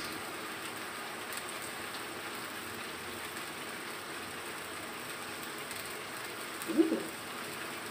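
Minced chicken and tomato sauce sizzling in a wok over a gas flame: a steady, even hiss, with one brief louder sound about seven seconds in.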